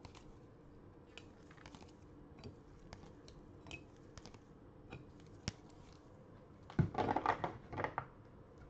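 Light clicks and taps of rigid plastic top loaders being lifted off acrylic card stands and gathered by gloved hands, with a louder run of plastic clatter about seven seconds in.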